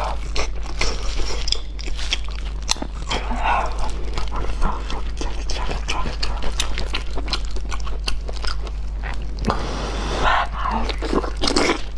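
Close-miked eating of sticky braised pork trotter: biting and chewing, with many wet smacks and clicks of the mouth as the skin and meat are torn off and chewed.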